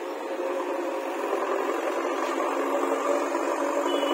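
A JCB backhoe loader's diesel engine running steadily as the machine works, growing louder toward the end.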